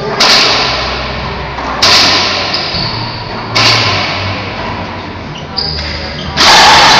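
Racquetball smacking hard against the court floor three times, about every second and a half, each sharp hit echoing in the enclosed court; near the end a lighter bounce comes before the loudest crack as the serve is struck.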